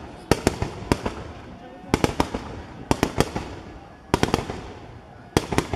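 Set-piece fireworks going off: quick volleys of sharp pops and bangs about once a second, with a steady hiss between them while ground fountains spray.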